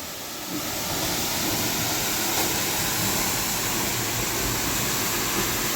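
High waterfall pouring: a steady rushing noise that grows a little louder about half a second in.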